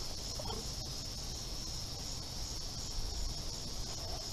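Steady high-pitched insect chorus that does not let up, with a low rumble underneath.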